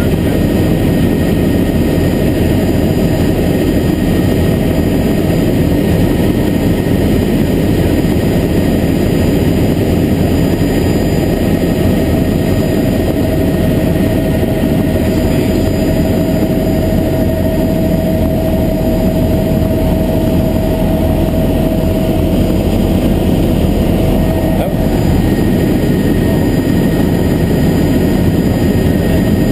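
Helicopter in steady cruise heard from inside the cockpit: a loud, even drone of engine and rotor, with a faint steady whine rising above it through the middle stretch.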